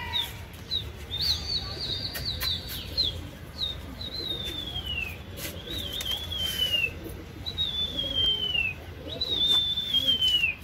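Shrill whistles: a few short notes, then long notes that slide down in pitch, with a flock of domestic pigeons flying overhead and a few sharp slaps among them.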